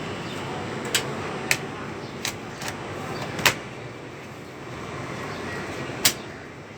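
Sharp, irregular clicks and taps of plastic laptop parts being fitted back together as an HP ProBook 4530s is reassembled after a RAM upgrade: about six clicks, the loudest a little past the middle and another near the end.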